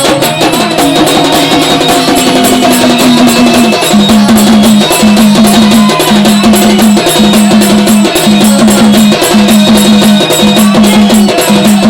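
Gondhal folk music: fast, steady drumming with a short pitched figure repeated about once a second.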